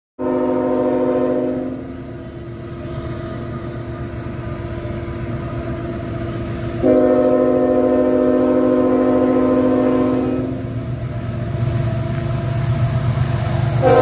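Nathan Airchime K5HLL five-chime locomotive air horn sounding a shorter blast, then a long blast of about four seconds, with a third starting near the end. Under the horn, the rumble of the approaching diesel locomotive and train grows louder.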